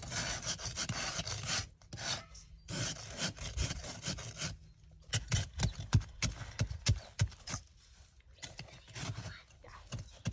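Icy snow and sleet being scooped into a bowl: long gritty scraping strokes in the first half, then a run of short crunching scrapes.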